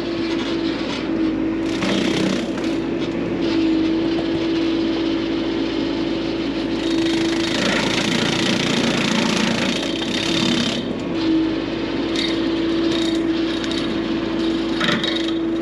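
Bobcat E42 mini excavator running a 42-inch hydraulic brush cutter attachment: a steady whine from the spinning cutter, with louder stretches of noise about two seconds in and again through the middle as it chews into brush.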